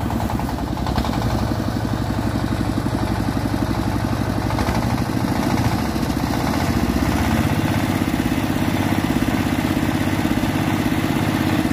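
Walk-behind tractor engine driving a rice threshing machine, running steadily with a fast even chugging while rice sheaves are fed into the threshing drum.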